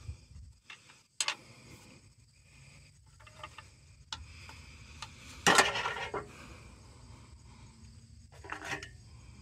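Steel screwdriver clinking and scraping against the brass rings of an excavator's rotary manifold as it is pried at: a few light metal clicks, one sharp ringing clank about five and a half seconds in, and another clank near the end.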